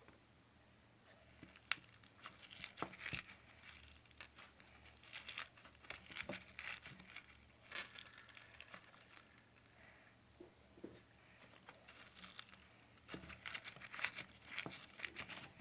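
Slime being squished and stretched by hand, giving faint, irregular sticky clicks and crackles.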